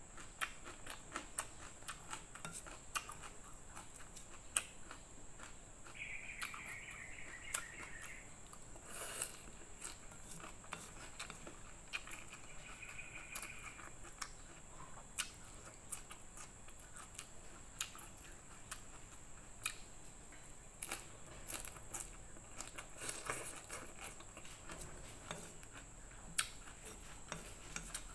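Close-up eating sounds of fried noodles with bean sprouts: chewing, slurping and small crunches, with many short clicks and taps from the fork. A faint high whine sounds twice, about two seconds each time.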